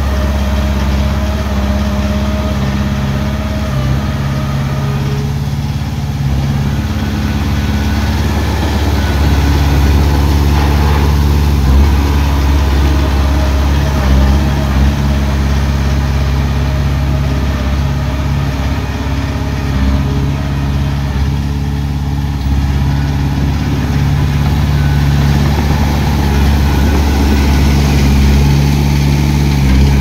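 Diesel engine of heavy construction machinery running steadily, a deep continuous hum.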